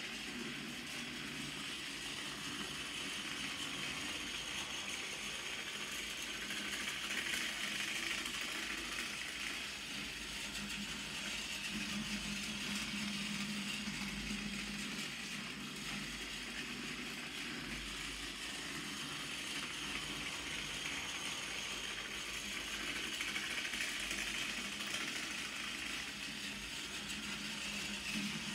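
Battery-powered Tomy TS-10 Toby the tram engine toy train running on plastic track: a steady whir of its small motor and gears, swelling slightly and easing as it goes round the loop.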